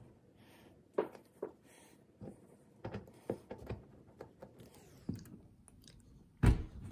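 Hand screwdriver turning a mounting screw into the wall: scattered small clicks and scrapes with handling rustle, and a loud thump near the end.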